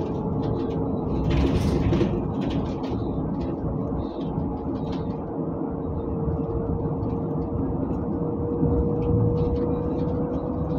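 Inside a city bus on the move: steady engine and road rumble with a faint whine that slowly rises in pitch as it picks up speed. Light rattles come through now and then, with a short hiss about a second and a half in.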